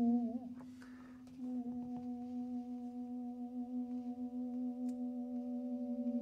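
Tuba holding a long, steady note with a slight waver. It breaks off for about a second shortly after the start and then sounds again, and a second, higher steady note joins near the end.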